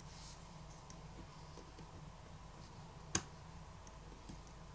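A single sharp small click about three seconds in, over faint room tone: a flex-cable connector on a smartphone motherboard popping off its socket under a pry tool.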